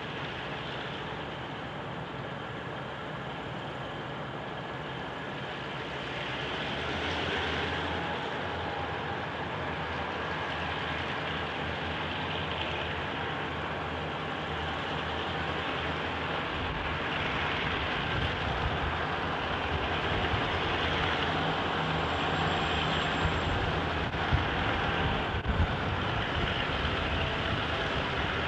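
GM-EMD diesel-electric locomotives at the head of a loaded grain train approaching slowly, their engines' steady low drone growing louder as they draw near. A few sharp clicks come near the end.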